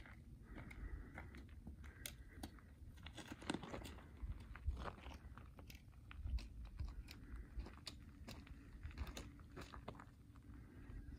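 Footsteps crunching and scuffing on a rocky, gravelly dirt trail, in irregular faint crunches over a low rumble.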